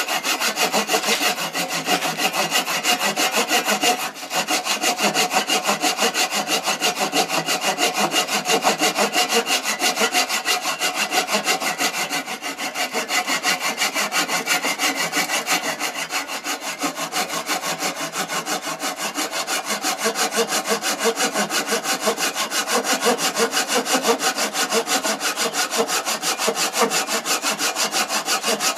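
Handsaw cutting through a wooden yo-yo blank, a steady rasping with a fast even pulse, parting the turned piece off the blank.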